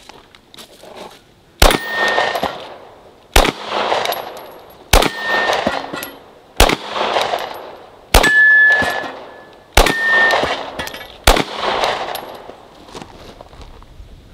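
Seven gunshots, slow and evenly paced about one and a half seconds apart, each followed by a long echo. After most shots a short metallic ring follows: steel targets being hit.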